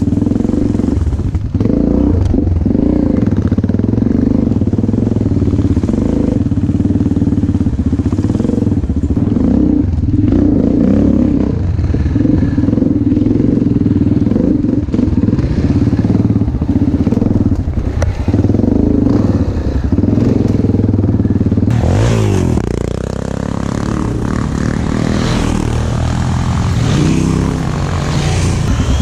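Enduro motorcycle engine running steadily while riding, with some clattering from the bike. About three-quarters of the way through, the engine note drops and then climbs again.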